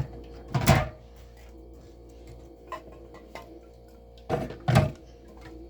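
Aluminium drink cans knocking and clunking as they are loaded into a mini fridge's can holder: one loud knock about a second in, a couple of light clicks midway, and two knocks near the end. Faint steady background music underneath.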